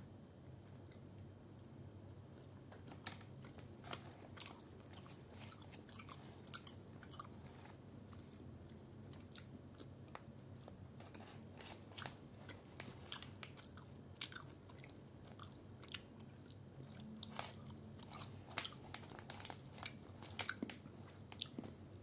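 A person chewing dried, shredded fish snack strips, with many small sharp crunches that come more often toward the end.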